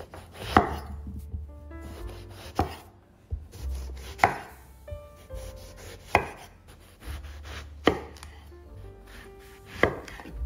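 A large kitchen knife slicing through a whole eggplant. Each cut ends in a sharp knock on a wooden cutting board, six cuts about two seconds apart.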